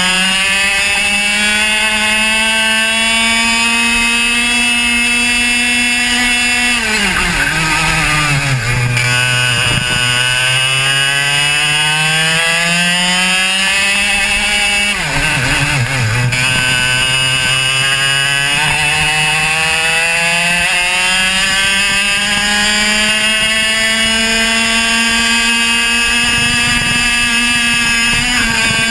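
Two-stroke racing kart engine heard onboard, running at high revs. Its pitch drops sharply twice, about seven and fifteen seconds in, as the kart slows for corners, then climbs steadily back as it accelerates out.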